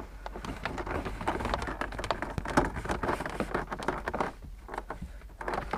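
Fingers tucking sensor wiring back into a car dashboard's defrost-panel opening: a dense run of small clicks, scrapes and rustles of wire and plastic that thins out about four seconds in.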